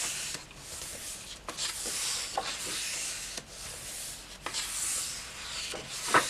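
Pages of a hardback coloring book of thick paper being turned and smoothed down by hand: a run of papery swishes, roughly one a second, with soft taps between them and a sharper slap of a page landing near the end.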